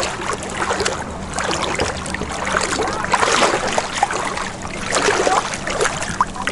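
Stand-up paddle strokes in lake water: the blade dips and pulls, giving splashing and trickling, with a few strokes a couple of seconds apart.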